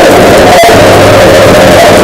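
Mock Emergency Alert System alarm audio: loud, harsh distorted noise with a steady mid-pitched tone over a low hum, and a sharp click about half a second in.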